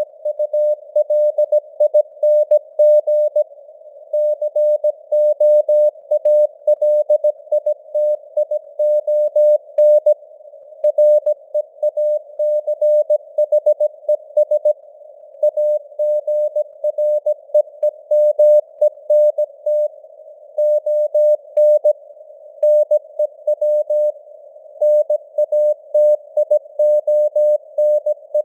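Morse code (CW) sent at 17 words per minute: a single mid-pitched tone keyed on and off in dots and dashes. It sits in simulated radio band noise, and the signal strength drifts up and down with fading (QSB).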